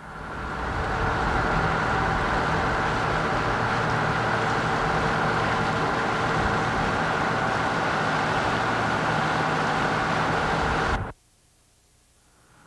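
Boat engine running steadily, a loud, even drone with a constant hum in it; it swells up over the first second and cuts off abruptly about eleven seconds in.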